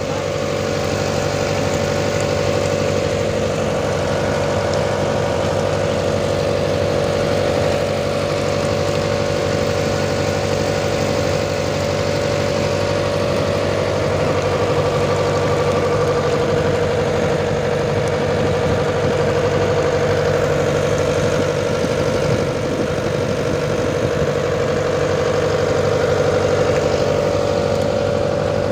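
A lift-net fishing boat's onboard engine running steadily at a constant speed, a continuous hum that holds one pitch throughout.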